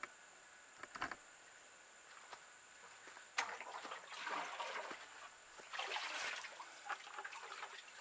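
A plastic bucket being scooped through muddy standing water to bail out a flooded pit, with two stretches of sloshing and splashing, about three and a half and six seconds in. A couple of light knocks about a second in.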